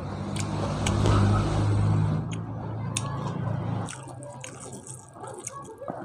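Close-up wet chewing and mouth clicks of a person eating by hand, over a low steady hum that swells and then stops abruptly about four seconds in.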